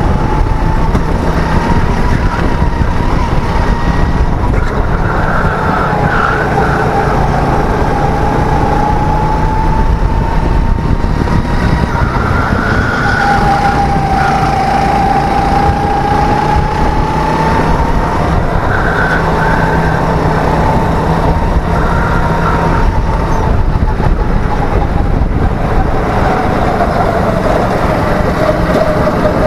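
Go-kart engine running, heard from the driver's seat on a cool-down lap. Its whine rises and falls slowly with the throttle through the corners.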